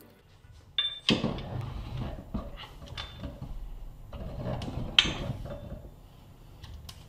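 Tool handling around a freshly bolted-together Rotax 951 aluminium crankcase with a digital torque wrench. A short high beep comes about a second in, then scattered clicks and metal knocks, the sharpest about five seconds in.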